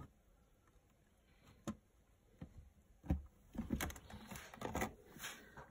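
Thin clear plastic cricket tub having its lid pressed on and being handled: a few single clicks, then a busier run of plastic knocks and crinkles in the second half.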